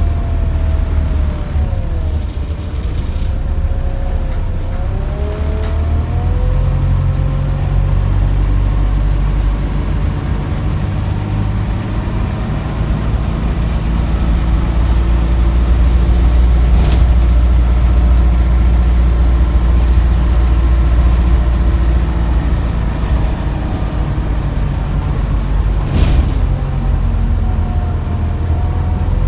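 Optare Solo bus engine and driveline heard from on board: a whine wavers up and down over the first few seconds, then the engine pulls harder about six seconds in and holds a steady drone, with two sharp knocks later on. The bus sounds ill, having broken down the day before.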